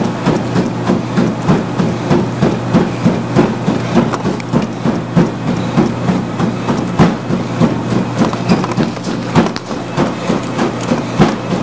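Treadmill running at a six-minute-mile pace, with a steady motor and belt hum under the fast, even slap of bare feet striking the belt, about three footfalls a second.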